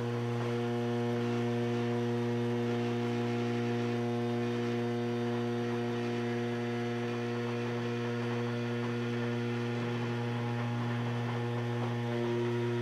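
TorqueCNC 9060 router's spindle running steadily as a 1/8-inch non-ferrous router bit mills brass sheet: a steady hum of several held tones that does not change in pitch.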